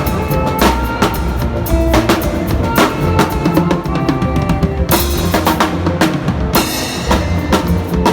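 Drum kit playing a busy groove, with bass drum, snare and rimshots over sustained instrument notes, at a band sound check. A cymbal crashes about five seconds in and again at about six and a half seconds.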